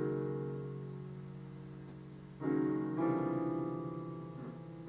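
Digital piano improvisation in slow, held chords: a chord rings and slowly fades, then a new chord is struck about two and a half seconds in and another half a second later, both left to ring out.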